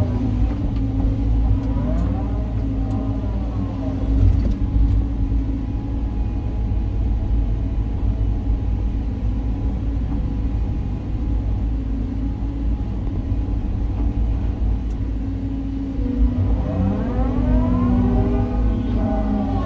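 Caterpillar 323 excavator's diesel engine and hydraulics running steadily while it digs, with the pitch sweeping up and back down under load just at the start and again in the last few seconds.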